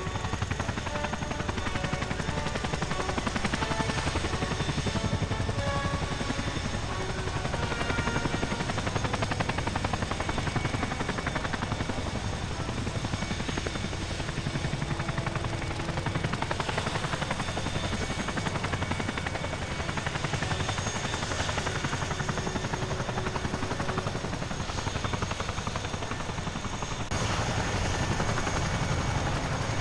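RAF helicopters running, their rotors chopping steadily and fast, a little louder near the end.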